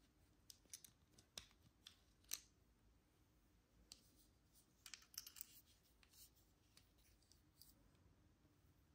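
Faint small clicks and scrapes from a Lexus smart key fob being handled: the side release button pressed and the metal emergency key blade slid out of the plastic case. A second cluster of quick clicks comes about five seconds in as the blade and fob are handled again.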